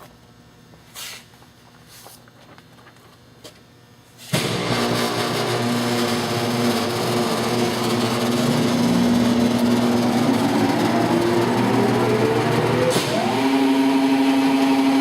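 Blanchard model 2242 rotary surface grinder starting up: after a few faint clicks over a low hum, the machine comes on suddenly about four seconds in, and its running tone climbs steadily in pitch as it spins up, jumping to a steady higher pitch near the end.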